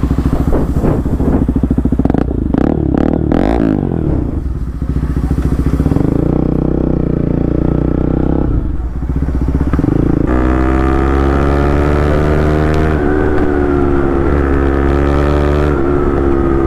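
Bajaj Pulsar NS200's single-cylinder engine through an aftermarket Akrapovic exhaust, revving as the motorcycle gets under way. From about ten seconds in it runs at a steady pace, its pitch falling slowly.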